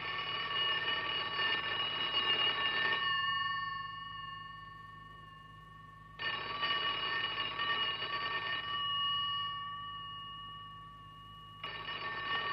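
Telephone bell ringing three times, with rings about six seconds apart. Each ring lasts about three seconds and dies away before the next.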